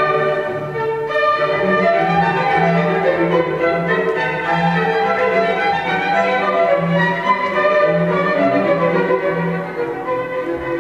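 String music led by violin, with a low note pulsing about once a second underneath.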